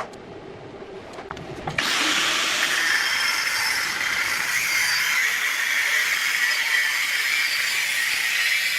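Handheld power tool working metal: it starts abruptly about two seconds in and then runs steadily with a hissing, grinding noise.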